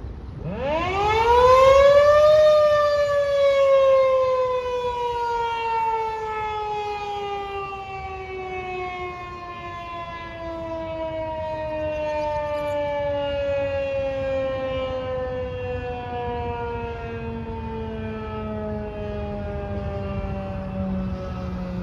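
Federal Signal 2001-130 electromechanical rotating outdoor warning siren giving a growl test. It winds up to a loud wail within about two seconds, then coasts slowly down, its pitch falling steadily as the rotor spins down.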